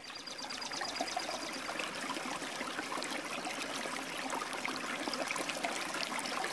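River water flowing and trickling, a steady sound of moving water.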